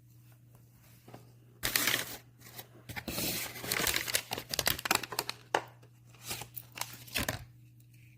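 Packaging being torn open and crinkled by hand: dense crackling and rustling with sharp snaps, starting about a second and a half in and stopping near the end.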